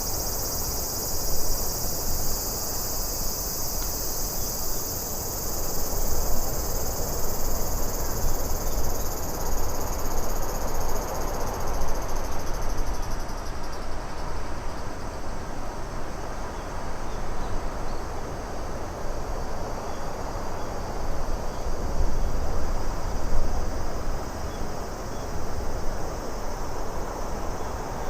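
Ambient nature soundscape: a steady, even wind-like rush, with a high cricket-like chirring above it that fades out about halfway through.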